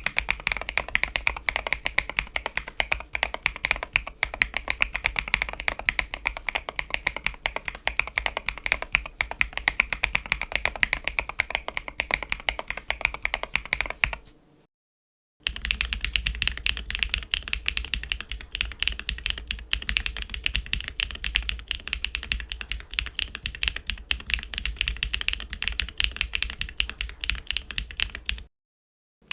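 Fast, continuous typing on a mechanical keyboard fitted with SW x Haimu MP tactile switches, the keys clacking sharply. About halfway through the sound cuts out for a second, then the typing resumes with a deeper low end, as if on a different board.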